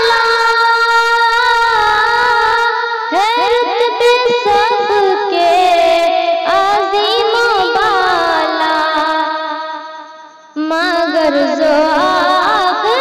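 A woman singing a naat, a devotional Urdu hymn in praise of the Prophet, in drawn-out melodic lines with vibrato. The voice fades away about ten seconds in and cuts back in abruptly.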